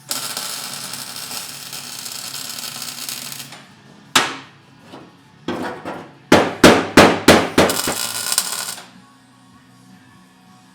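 Hammer strikes on metal: a single sharp blow about four seconds in, then a quick run of about five blows a couple of seconds later. A steady hiss runs for the first three and a half seconds and again around the hammering, with background music underneath.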